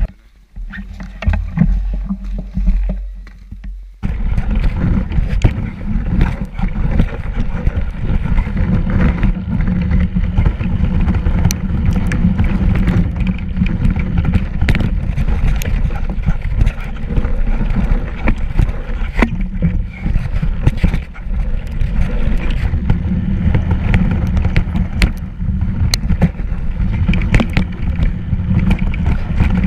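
Riding noise from a camera mounted on a fat-tyre mountain bike going down a snowy trail: a steady low rumble of buffeting and vibration, with frequent sharp rattles and knocks as the bike goes over bumps. It is quieter at first, and the riding noise starts abruptly about four seconds in.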